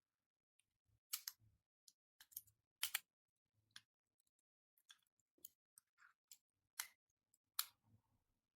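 Plastic Lego Technic pieces clicking as they are handled and snapped together: a dozen or so short, sharp clicks at irregular intervals, the loudest about one, three and seven seconds in.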